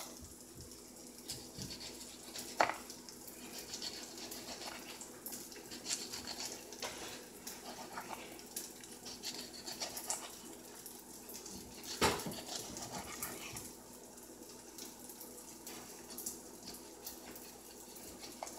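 Chef's knife slicing an orange into rounds: scattered light clicks and taps of the blade, with a sharper knock about two and a half seconds in and another about twelve seconds in.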